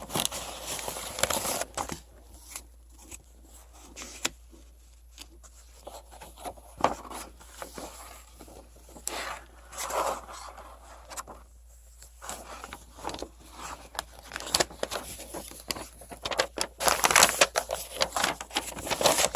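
A shipping box and its packing being opened and handled by hand: irregular scraping, tearing and crinkling with sharp clicks and knocks, busiest near the end.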